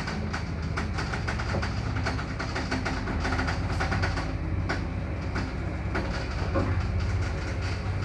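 Old lift car travelling upward in its shaft: a steady low rumble and hum from the running drive, with irregular clicking and rattling of the car. The car has no inner door, so it runs open to the shaft wall.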